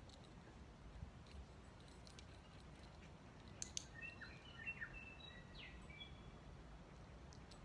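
Near silence with faint birdsong: a short run of high chirps and quick whistled glides about four to six seconds in, just after a couple of sharp clicks.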